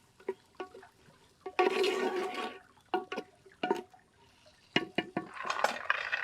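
Onions frying in oil in a pot over a wood fire being stirred: sharp clicks of the ladle against the pot, and two short bursts of sizzling and scraping about two seconds and five seconds in.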